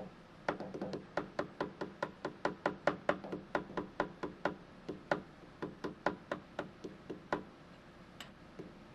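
Quick, light knocks, about three a second, of a hammer tapping a steel workpiece down into a milling-machine vise to seat it. The knocks stop about seven seconds in.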